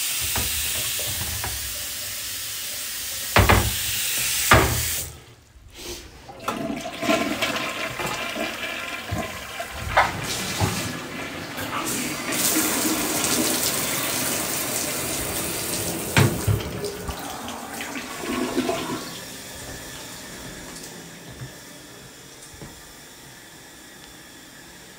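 Bathroom sink faucet running into the basin, with two loud knocks about three and a half and four and a half seconds in. After a short break, a toilet flushes and its tank refills, the rush of water fading away about 19 seconds in.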